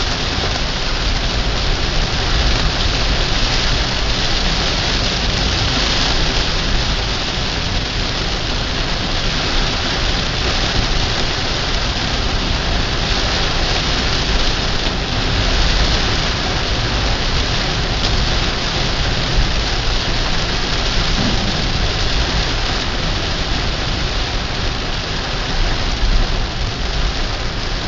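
Heavy downpour drumming on the car's roof and windshield, heard from inside the cabin: a loud, steady hiss with a deep rumble beneath it.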